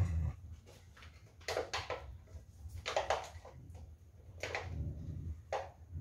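Dogs play-fighting: a low growl right at the start, then four short, sharp bursts about a second apart.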